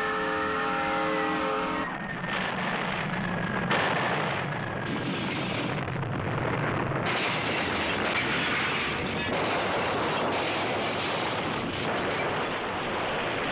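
A diesel locomotive's multi-chime air horn sounds for about two seconds, then gives way to the continuous roar of tornado wind and debris. A thin whistle rides in the wind for the first few seconds.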